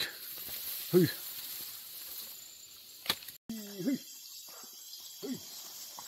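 Steady high chirring of insects, crickets, in the field. Over it come a few short voiced sounds from a man, one right at the start and one about a second in, and a few more with a falling pitch in the second half.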